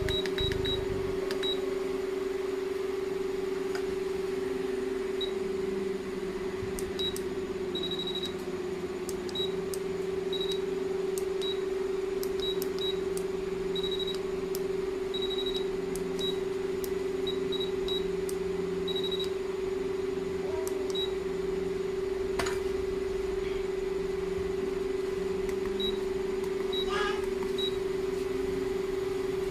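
Hot air rework gun running with a steady whine from its blower. Short high pips come now and then, and there is a single click about two-thirds of the way through.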